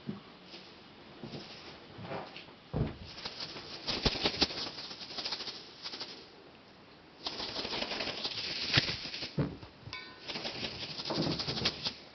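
Kittens scrabbling and rustling as they play, in three stretches of scratchy noise with a few sharp ticks, and a brief high squeak about ten seconds in.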